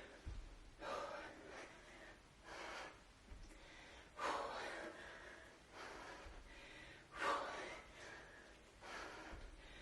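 A woman breathing hard with sharp, forceful exhales a second or few apart, the strongest about four and seven seconds in: effort breaths through repeated kettlebell cleans.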